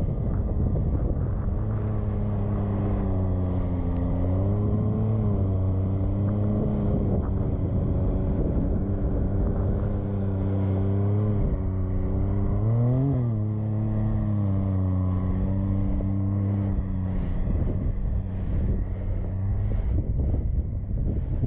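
Side-by-side UTV engine running steadily, its note rising briefly about five seconds in and revving up sharply around thirteen seconds before settling back, with wind buffeting the microphone.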